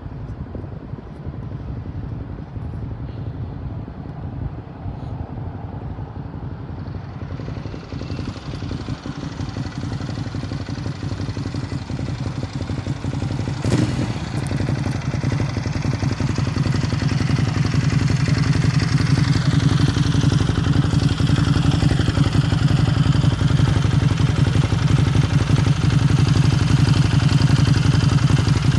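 Motorcycle engine idling close by among queued road traffic, a steady low hum that grows gradually louder. A single sharp knock comes about fourteen seconds in.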